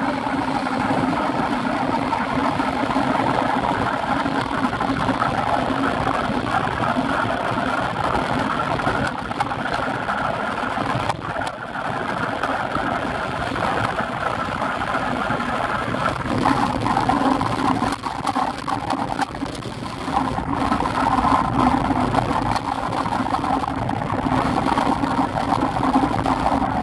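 Steady rush of riding noise from a bike-mounted camera moving with a group of road cyclists on a wet road: wind over the microphone and tyres on wet tarmac.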